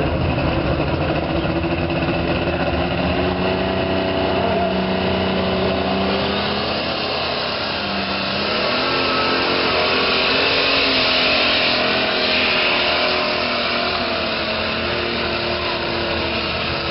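Super stock pulling tractor's turbocharged diesel engine running hard at high revs through a pull, loud and steady with its pitch dipping and rising.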